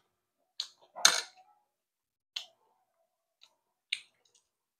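Spoons clicking and scraping against plates while eating, a handful of separate short sounds, the loudest about a second in.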